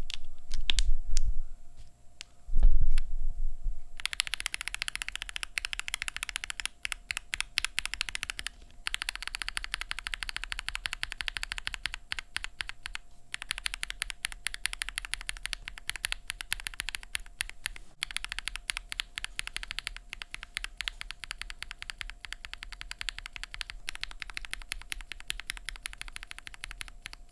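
Mechanical keyboard fitted with OP Black linear switches being typed on in a sound test. After a couple of low thuds in the first seconds, fast continuous keystrokes start about four seconds in, with a few brief pauses.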